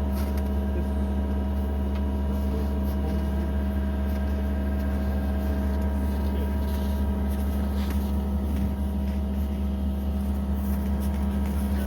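A motor running steadily: a constant low hum with even tones above it and no change in speed, with a few faint knocks.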